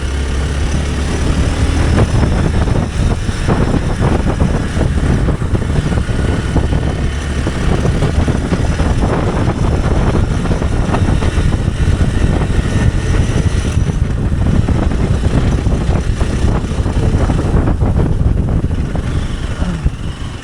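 Hero Xpulse 200 Pro's single-cylinder engine running steadily while riding, with frequent knocks and rattles from a rough off-road track.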